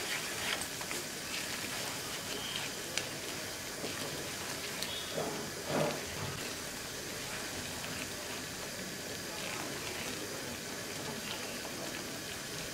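Semolina halwa sizzling in a frying pan while a silicone spatula stirs it, the mixture loosened by sugar melting into it. A brief louder swell comes a little before six seconds in.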